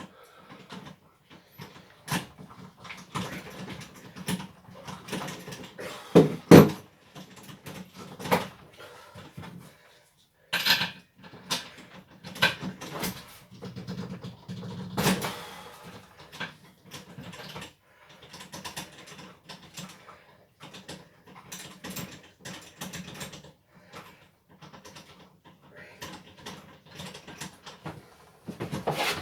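Irregular knocks, clicks and rattles of tools and small parts being handled and moved about, with no engine running; one sharper knock comes about six seconds in.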